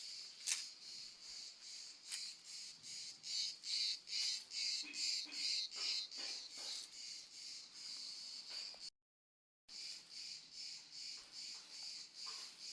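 A high-pitched insect chorus, pulsing about twice a second, broken by a split-second dropout about nine seconds in.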